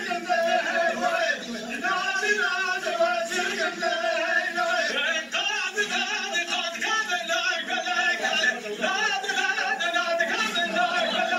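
Male voices singing an old Kurdish halay dance song, a high and continuous melody.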